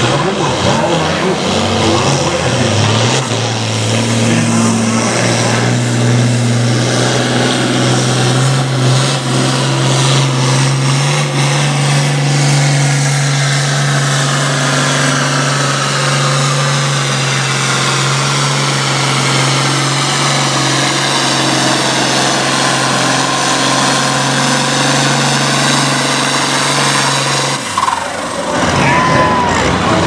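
International Harvester turbocharged diesel farm tractor engine at full throttle pulling a weight-transfer sled, its note climbing over the first few seconds and then holding steady under load. The engine sound cuts off suddenly near the end.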